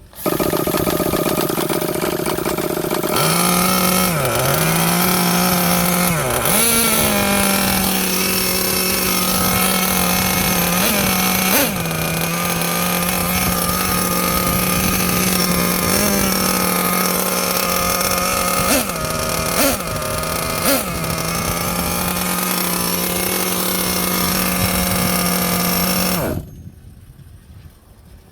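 Small 5 cc gas engine of a Losi LST XXL-2 RC monster truck running at a steady high idle, with a couple of dips in speed early on and several quick throttle blips in the middle. It cuts off abruptly a couple of seconds before the end.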